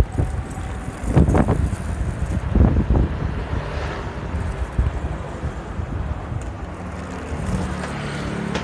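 Wind buffeting the microphone in uneven gusts over a low road rumble while riding along a street.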